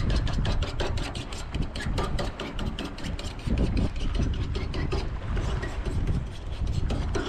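A knife scraping and cutting on a plastic truck-bed liner, a quick run of clicks and rasps, over wind rumbling on the microphone.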